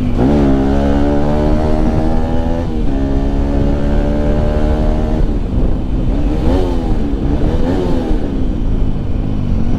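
Bajaj Pulsar RS 200 single-cylinder engine through its stock exhaust, riding under way. The revs drop and climb again at a gear change right at the start, hold steady, and dip again at another shift a little under three seconds in. In the second half the pitch rises and falls several times as the throttle is opened and closed.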